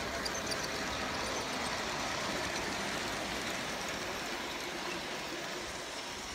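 G scale model train running past close by: the steady rolling rattle of its cars' wheels on the track, easing slightly toward the end.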